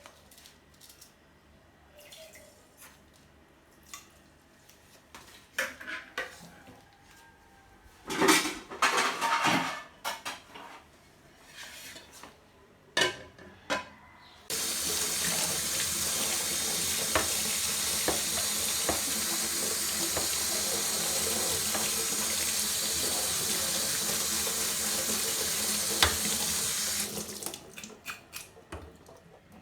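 Kitchen clatter of pots and utensils being handled, then water running steadily from a tap for about twelve seconds, starting and stopping abruptly.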